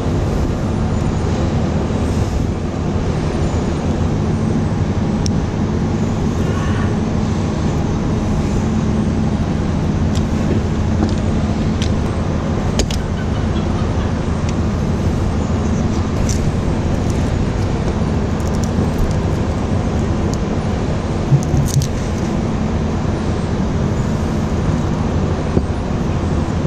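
An engine running steadily, with a low even hum, and a few light clicks as cable insulation is cut and stripped.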